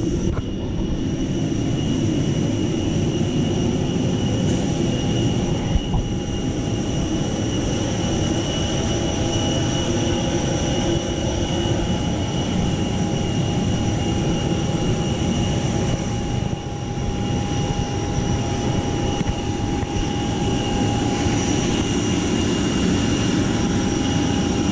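Parked Airbus A320-family jet airliner humming on the apron with its engines off, most likely its auxiliary power unit running. It makes a steady whine with several high tones over a low rumble, unchanged throughout.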